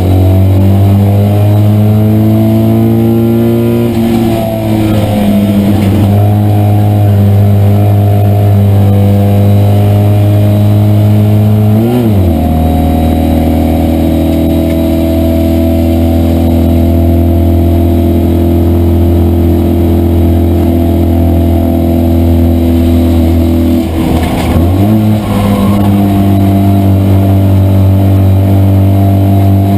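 Citroën 2CV's air-cooled flat-twin engine running hard at race pace, heard from inside the cabin. Its pitch holds high and steady, with sharp dips and recoveries about four, twelve and twenty-five seconds in.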